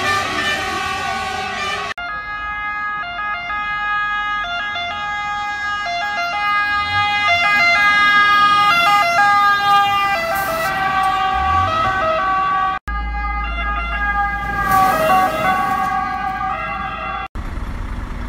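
Italian fire engines' two-tone sirens sounding as the trucks pass, the note switching back and forth between a high and a low pitch, with a truck engine running underneath. The sound breaks off abruptly a few times between passes.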